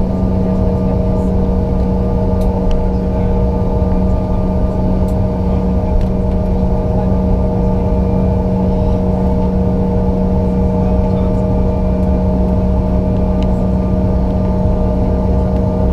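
Bombardier CRJ-900's rear-mounted GE CF34 turbofan engines heard from inside the passenger cabin, running at a steady setting. A constant low drone carries two steady whining tones.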